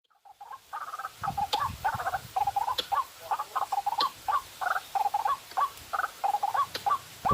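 White-breasted waterhen (ruak-ruak) calling: a long run of short croaking notes repeated about three times a second, with a few faint sharp clicks among them.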